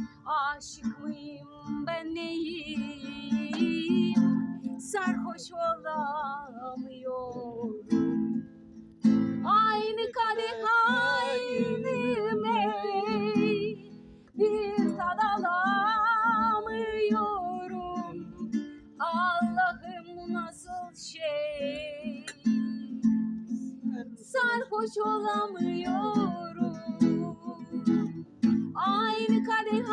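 A woman singing a song in phrases, her pitch wavering with vibrato, to a strummed acoustic guitar.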